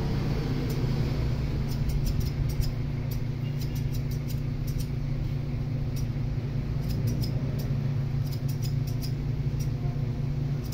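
Electric hair clipper running steadily with a low hum, cutting a fade, with light irregular ticks throughout.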